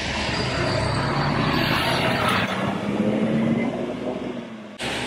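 Isuzu diesel route bus pulling away from the stop, its engine rising in pitch as it speeds up, with tyres hissing on the wet road.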